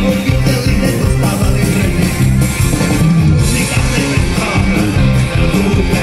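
A live folk-rock band playing with a steady beat, with acoustic guitar, fiddle, accordion and drums.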